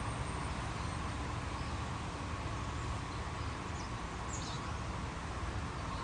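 Outdoor nature ambience: steady hiss and low rumble, with a few faint, short, high bird chirps in the second half.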